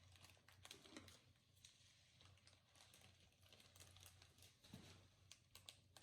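Faint, irregular small clicks of slime being squeezed and pulled apart by hand.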